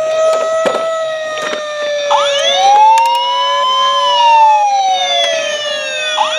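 Electronic toy fire-truck sirens: a low, slowly wavering siren tone throughout, joined about two seconds in by a second siren that rises and falls, with a few plastic clicks and knocks from the toys being handled.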